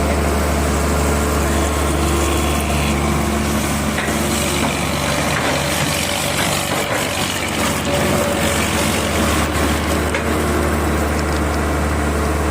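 Heavy engine running steadily, with a strong low hum that eases slightly around the middle.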